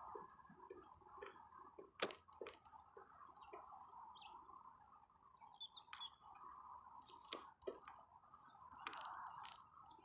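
Faint, irregular clicks and rattles over a low steady hiss as a bicycle rolls along a concrete path, picked up by a handlebar-mounted camera.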